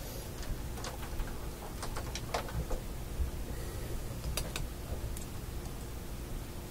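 Small sharp clicks and taps from hands handling small parts and test-lead clips on a workbench: a scatter of them over the first three seconds and a quick pair about four and a half seconds in, over a faint steady hum.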